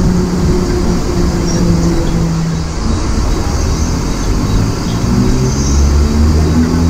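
Mumbai suburban local electric train running past a station platform, heard from its doorway: a steady rumble with humming tones whose pitch shifts.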